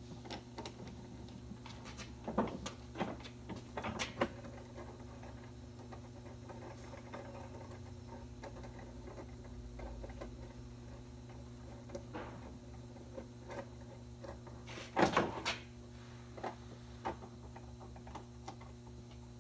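Scattered light clicks and clinks of steel wire rope and wire rope clamps being handled and adjusted by hand, with a louder clatter about 15 seconds in. A steady low hum runs underneath.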